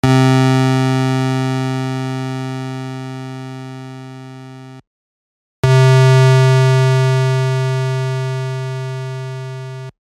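Game show sound effect: a low synthesized tone sounded twice, each held for about four to five seconds and fading away slowly, with a short break of silence between them.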